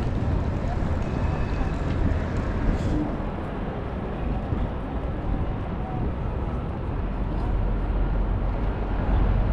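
City street ambience: a steady low rumble of passing traffic under a constant background hum, growing a little louder near the end.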